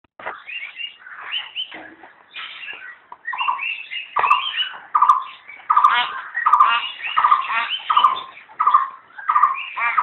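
Myna calling: varied chattering notes at first, then from about four seconds a short, rattling call repeated about every two-thirds of a second.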